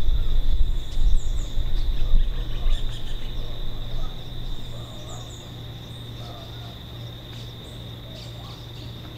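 Outdoor nature ambience: birds chirping in short paired notes over a steady high insect trill. A low rumble is loud at first and fades out about halfway through.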